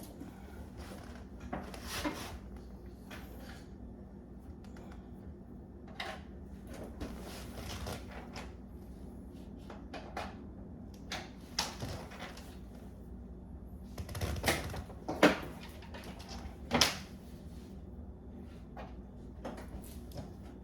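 Irregular clicks and knocks from handling a desktop PC case, spaced several seconds apart and loudest about two-thirds of the way through, over a low steady hum.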